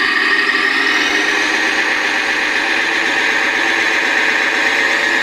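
Electric motor and gearbox of a radio-controlled King Hauler scale truck whining steadily as it creeps forward under a heavy stone load; the whine climbs a little in pitch in the first second or two.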